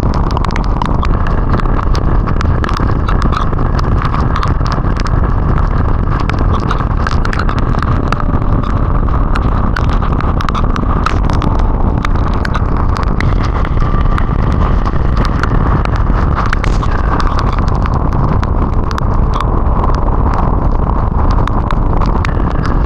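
Motorcycle riding in the rain: steady wind rush and engine rumble, with many raindrops ticking on the action camera and its microphone.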